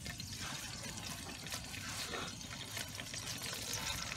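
Steady hiss with faint crackling from shallow liquid heating in an aluminium pot over a charcoal stove, as lemongrass stalks are laid into it.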